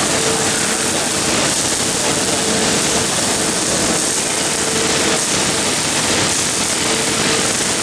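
MIG welding arc from a CNC gantry automatic welder running steadily while laying a bead, with a faint hum that comes and goes.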